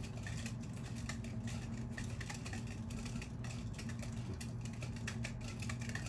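Faint light clicks and taps of a clear plastic RC helicopter cockpit canopy being handled and turned in the hands, over a steady low hum.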